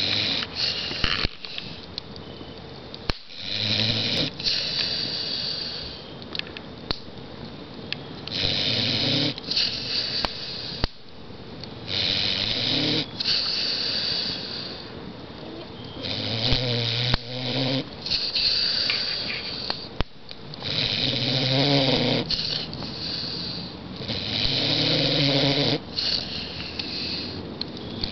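A pit bull snoring in its sleep, with loud snores recurring about every four seconds and quieter breaths between them.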